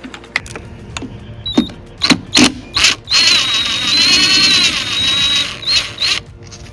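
Cordless drill-driver spinning for about two and a half seconds, backing out a screw from the chainsaw's recoil starter housing, with a high whine over the motor, then two short blips of the trigger. Before it come sharp clicks and knocks of the tool and bit being handled against the saw's plastic housing.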